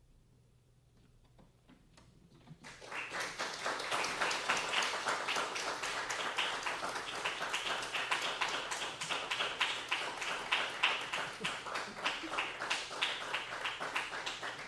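A hush at first, then an audience breaks into applause about three seconds in and keeps clapping steadily.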